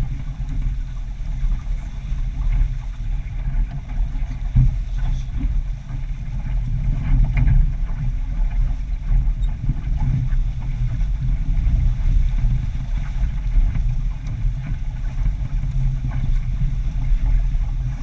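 Wind rumbling and buffeting on a GoPro microphone aboard a sailboat moving at speed, with the rush of water along the hull. The rumble sits low and swells and fades unevenly.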